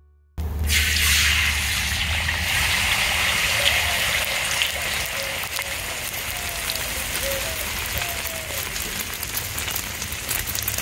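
Egg frying in hot oil in a wok: a steady sizzle with crackles that starts suddenly about half a second in, over a low rumble.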